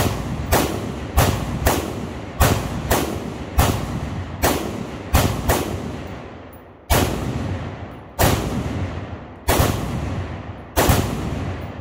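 Rapid string of shots from a 5.56 semi-automatic rifle, each report followed by a long echoing tail. The shots come roughly twice a second at first, then slow to about one every second and a half in the second half.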